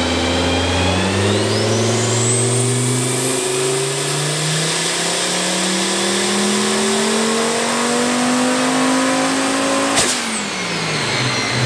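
Turbocharged VW 07K 2.5-litre inline five-cylinder on a chassis dyno making a full-throttle baseline pull: the revs climb steadily for about ten seconds, with a high whine rising with them. A sharp crack comes as the pull ends, and then the revs and the whine fall away.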